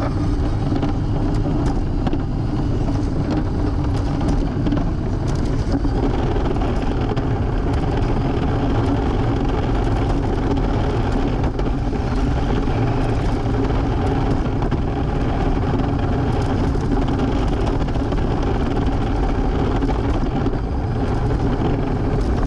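Onboard sound of a 1/14-scale Tamiya RC semi truck driving on pavement: a steady whir from its electric motor and gearbox, with rumble from the chassis and wheels carried straight into the mounted camera.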